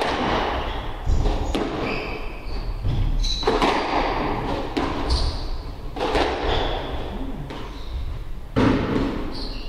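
Squash rally: the ball is struck by rackets and thuds off the court walls every second or two, at an uneven pace.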